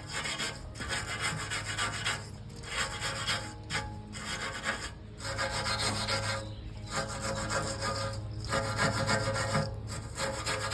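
Wire brush scrubbing mud and dirt off steel backhoe bucket tooth adapters, in repeated scratchy back-and-forth strokes with short pauses between them.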